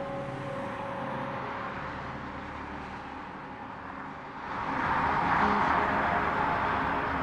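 Cars driving on a road, with engine and tyre noise that swells about four and a half seconds in as they come closer.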